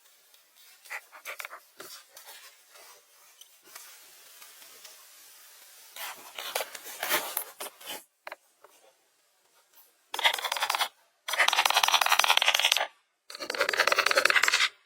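Hand-tool rasping and scraping on material: faint scratches and clicks at first, a louder rasp midway, then three loud rasping strokes of about a second each near the end, each stopping abruptly.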